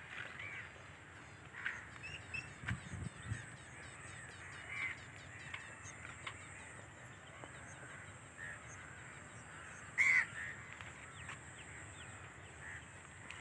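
Crows cawing in short, scattered calls, the loudest about ten seconds in, over a steady high hiss. A fast, high ticking runs for a few seconds in the first half.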